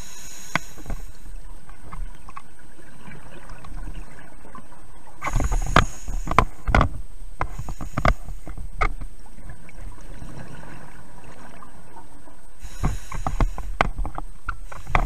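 Scuba diver's regulator exhaust bubbles, heard underwater through the camera housing: bubbling, crackling bursts about five seconds in and again near the end, with a steady hiss and scattered clicks between, in time with the diver's breathing.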